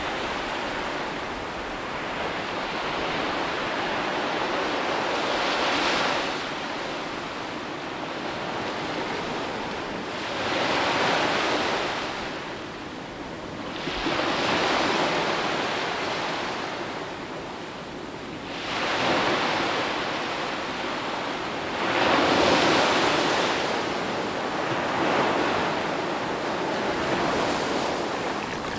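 Ocean waves breaking and washing on a shore, the surf swelling and falling back every four to five seconds.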